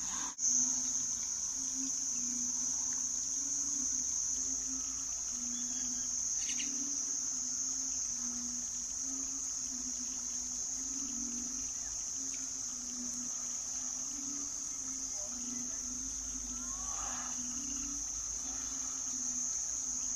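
A steady, unbroken high-pitched insect chorus, with a faint low hum beneath it.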